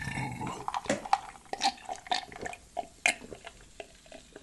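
Wet mouth sounds of close-miked eating: irregular lip-smacking and chewing clicks.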